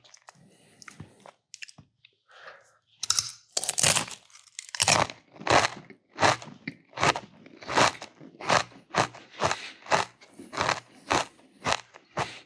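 Close-miked chewing of crunchy food. After about three seconds of faint mouth sounds, loud crunches come about twice a second.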